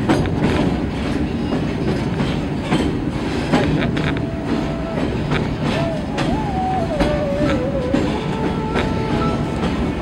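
Train running along the track, heard from aboard, with the clickety-clack of its wheels over the rails and frequent sharp clicks. A wavering high tone comes in about halfway through.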